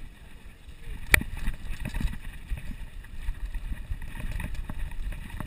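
Mountain bike rolling over a bumpy dirt trail: a low rumble with irregular rattling knocks as it jolts over the ground, and wind on the microphone. One sharp clack about a second in is the loudest sound.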